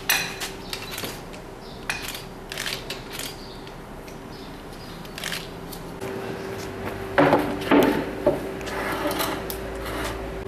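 Metal hand tools clicking and knocking as a mechanic works on a van's wheel and jack, with a few louder clanks about seven to eight seconds in, over a steady low hum.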